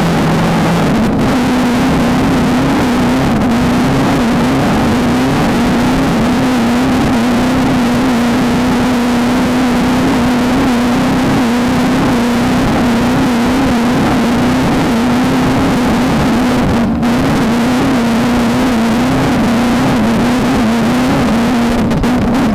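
VW Beetle-based desert race car's engine running hard at steady high revs, its pitch wavering slightly, over a constant loud rushing noise.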